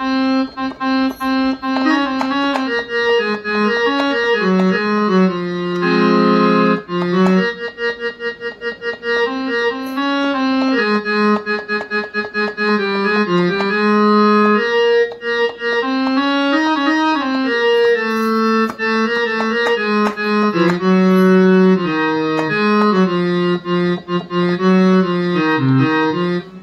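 Virtual Swarplug harmonium played live from a 25-key MIDI keyboard: a melody of held reedy notes with lower notes sounding beneath it.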